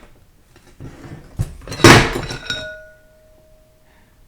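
Steel transmission parts knocking and clanking against a metal work surface. A few light knocks lead into one loud clatter about two seconds in, which leaves a ringing metallic tone that fades away.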